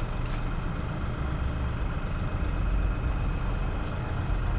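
Wind rumbling and buffeting on a GoPro's microphone: a steady low rumble with a few faint clicks in the first couple of seconds.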